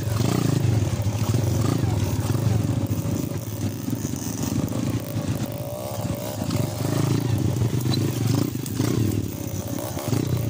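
Small underbone motorcycle engines running and revving, the sound rising and falling unevenly as the bikes work along a dirt trail.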